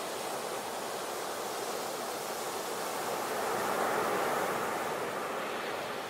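Ocean surf: waves breaking and washing, one swell building about halfway through and then easing off.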